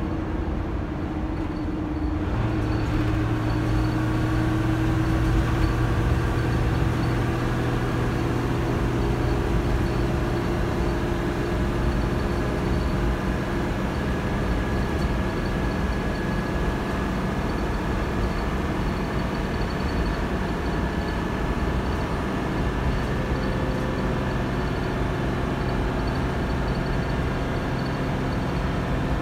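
Dennis Dart SLF bus's Euro 2 diesel engine and Allison AT545 automatic gearbox heard from inside the saloon, running hard on the move. A steady drone with a strong low hum that comes in about two seconds in, and a whine that rises slowly in pitch over the first half.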